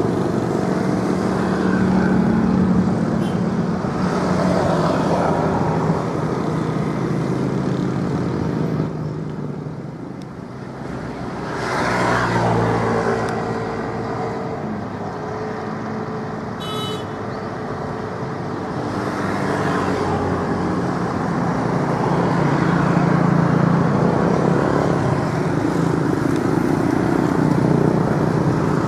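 Motor engines running, the sound swelling and fading as they pass, with a dip about ten seconds in and a short high chirp near the middle.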